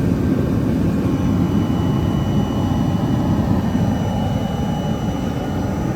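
Carbonization furnace machinery running: a loud, steady, low roar with a faint steady high whine above it.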